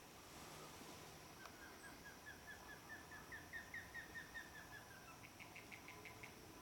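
Osprey calling: a faint series of short, down-slurred whistles, about five a second, rising in pitch and loudness midway and then easing back, followed by a quicker run of higher, shorter chirps near the end.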